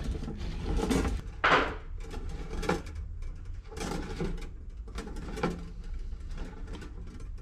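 A coil of nickel-copper brake line tubing being handled and uncoiled: scattered scrapes, rattles and light clicks of the metal tubing, with a louder rasping scrape about a second and a half in.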